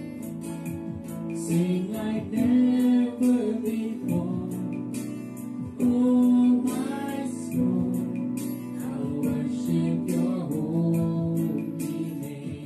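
A man and a woman singing a duet into handheld microphones over a guitar accompaniment, the voices held on long sung notes.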